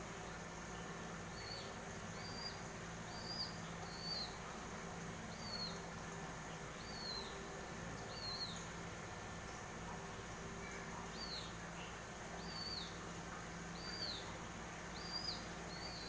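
Indian myna chick calling: short high chirps repeated about once a second, each rising then falling in pitch, over a steady low hum.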